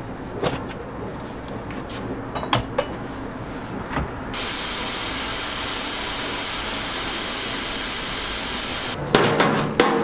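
Metal steamer trays clinking and knocking as they are handled, then a steady hiss of steam from a rice-cake steamer cooking rice flour under a cloth, then louder metal clatter of the perforated steamer tray near the end.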